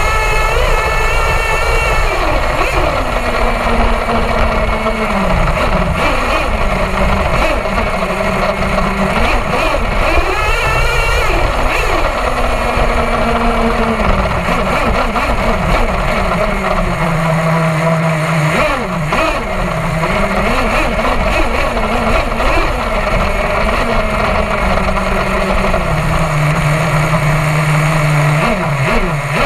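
Nitro glow-plug engine of an HPI Savage XL RC monster truck, heard from on board. It revs up and drops back again and again with the throttle, holding a steady pitch for a few seconds at a time in between.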